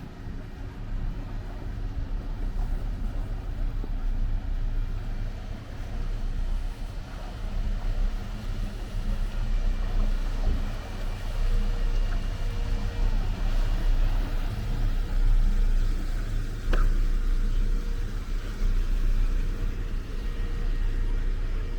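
Harbourside outdoor ambience: a continuous low rumble that swells and fades, with faint steady hums over it and a single sharp click about seventeen seconds in.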